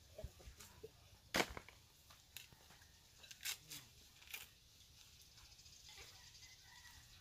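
Scattered sharp cracks and snaps from dry coconuts being worked by hand, the loudest about a second and a half in.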